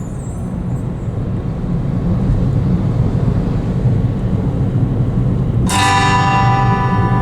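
A steady low rumble, then a bright bell-like chime about six seconds in: the opening of a music track.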